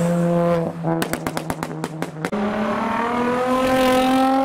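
Car engine held at high revs, then a quick string of about ten sharp exhaust pops and cracks, then the engine revving up with a slowly rising note as the car accelerates.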